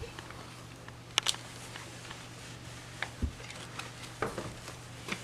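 A few scattered light clicks and taps, with one soft low thump about three seconds in, over a faint steady hum.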